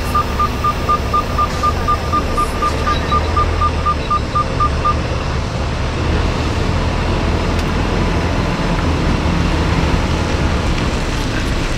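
Semi-truck's diesel engine running low and steady as the tractor-trailer backs up, with a rapid high beeping, about four beeps a second, that stops about five seconds in.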